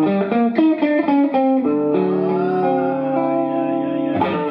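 Guitar playing the opening of a slow blues: a quick run of single plucked notes, then a held chord ringing with one note bent up and back down, and a sharp hit near the end.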